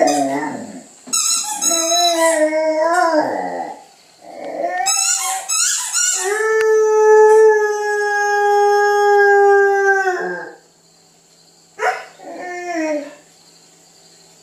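Catahoula leopard dog howling: a few short wavering howls, then one long steady howl of about four seconds, and a short howl near the end. She is howling to demand her breakfast.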